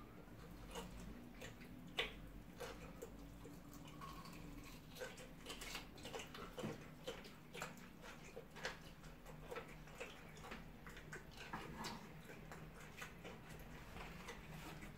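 Faint eating sounds: chewing and wet lip smacks as rice and chicken are eaten by hand, a scatter of small clicks and smacks, one sharper about two seconds in.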